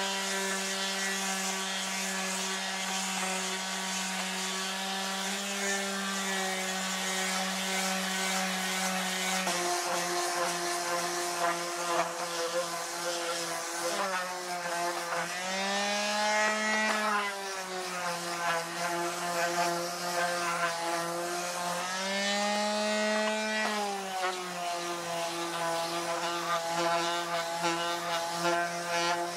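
Handheld power sander's motor running steadily, sanding burnt clutch-disc residue and rust off the steel faces of a Bush Hog slip clutch; its whine swings up in pitch twice for about two seconds each.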